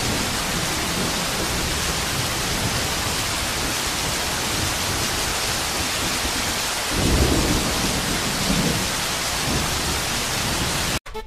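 Heavy downpour: a steady, dense hiss of rain, with a low rumble swelling up about seven seconds in and again a second or so later. The rain cuts off abruptly just before the end.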